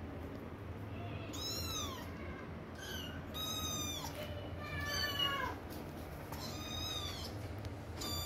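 Kittens meowing: about six separate high-pitched mews, each rising then falling in pitch, over a faint steady low hum.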